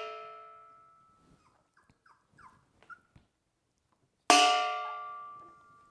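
A metal object struck hard, clanging and ringing in several pitches as it fades. The ring of one strike is dying away at the start, and a second strike comes about four seconds in. Faint puppy squeaks come in between.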